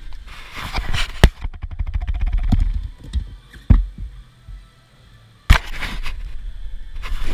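Rubber bumper plates and the barbell's metal sleeve being handled, clanking and rattling. A quick run of small rattles comes early on, and there are three sharp knocks, about a second, nearly four seconds and five and a half seconds in.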